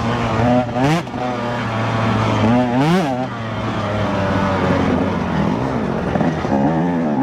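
Two-stroke dirt bike engine running and being revved, with sharp throttle blips that shoot up and drop back about a second and three seconds in, then slower rises and falls in engine speed.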